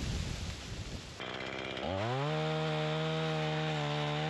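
Chainsaw engine revving up about two seconds in and then holding steady at high speed, after a second of rough noise.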